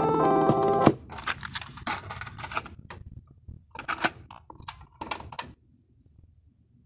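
Music cuts off about a second in, followed by a series of sharp plastic clicks and clunks from the Aiwa CSD-ES340 boombox's cassette deck as its door is pushed shut and its keys are pressed.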